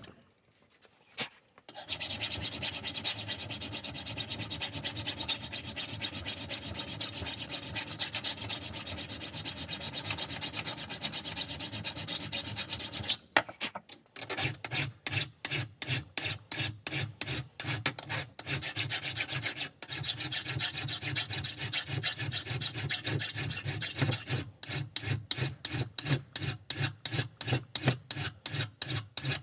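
Hand file scraping back and forth across the rusty frame of an old G-clamp held in a vise, cutting it down to bright metal. After a short quiet start comes a fast, unbroken run of strokes; past the middle, after a brief pause, the strokes come one by one about twice a second, getting quicker near the end.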